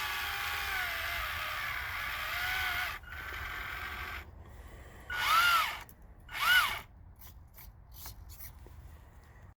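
Small electric motor running with a whine that wavers in pitch for about three seconds. Then two short spin-ups, each rising and falling in pitch, about a second apart, followed by a few light clicks.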